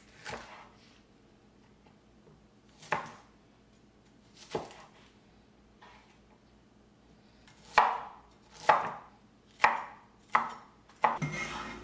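Chinese cleaver chopping bok choy on a wooden cutting board: about eight separate cuts, slow and spaced at first, then quicker over the last few seconds.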